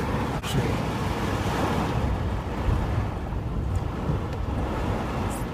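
Steady low rumble and rush of a car driving on a wet road in a heavy rainstorm, heard from inside the cabin.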